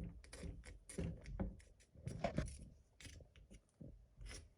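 Irregular short scraping and rubbing strokes on freshly set plaster, as rough spots are scraped off a cast volcano model.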